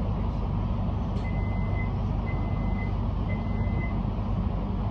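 Three short, even high beeps about a second apart from a Metro X'Trapolis train standing at a platform, its door-closing warning, over the train's steady low hum at standstill.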